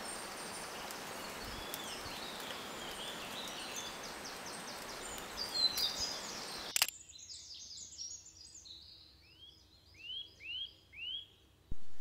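Woodland songbirds singing and calling, several voices at once, over a steady hiss. About seven seconds in, the hiss cuts off abruptly, leaving high chirping song and three loud rising notes near the end.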